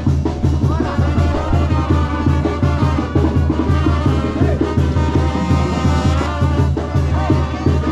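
Brass band music with drums and a steady bass beat, loud and unbroken.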